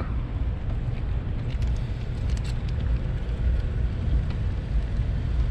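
Steady low rumble of outdoor background noise, with a few faint light clicks about two seconds in.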